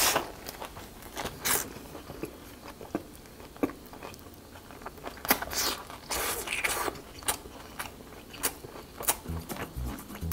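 Close-up chewing and mouth sounds of someone eating a perilla-leaf wrap of braised pork and kimchi: irregular wet smacks, clicks and soft crunches.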